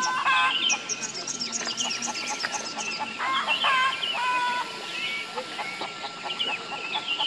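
Birds calling: many short clucking and chirping calls that rise and fall in pitch and overlap throughout.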